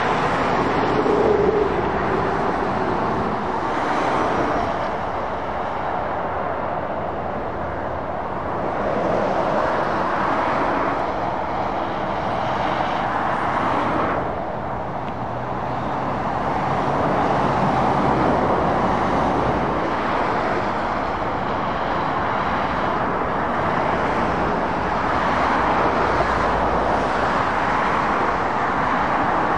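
Traffic on a dual carriageway: heavy lorries and cars passing one after another, their tyre noise and diesel engines swelling as each vehicle approaches and fading as it goes by.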